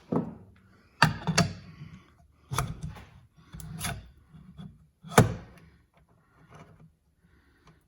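Hard mixer parts knocking, clicking and scraping as a part is worked back into the KitchenAid stand mixer's greased gear housing. There are several sharp knocks with rubbing between them, the loudest about five seconds in.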